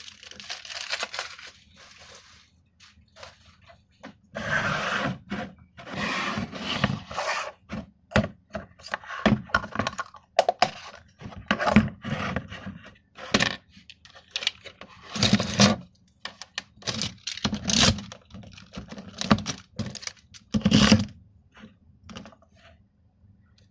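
Hard plastic sport-stacking cups clacking, knocking and scraping as stacks of them are handled and set down on a table, in an irregular string of sharp knocks and short rustles.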